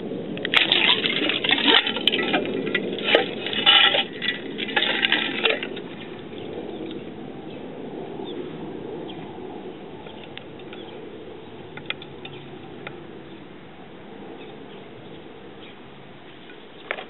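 Ice in a frozen bucket being broken by hand: cracking, clinking ice pieces and splashing water for about the first five seconds, then much quieter, with a few faint clicks as the ice slab is shifted.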